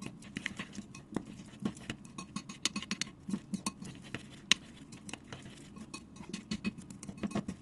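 A spoon stirring chopped chilli, garlic and coriander root through a thin sauce in a ceramic bowl, scraping and tapping against the bowl in a quick, irregular run of light clicks.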